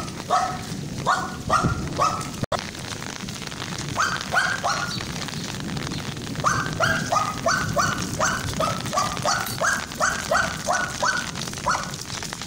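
Young dog barking in short, high yaps, a few at first and then a quick run of about three a second, over the steady hiss of falling rain.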